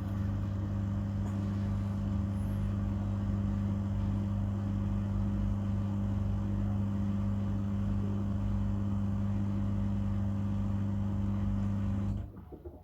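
Miele washing machine running with a steady low hum and a rush of noise over it, cutting off abruptly near the end.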